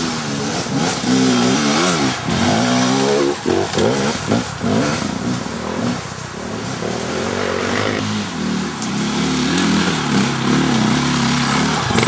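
Enduro dirt bike engine revving hard on a climb, its pitch rising and falling with the throttle, with a run of quick, sharp throttle blips about four seconds in.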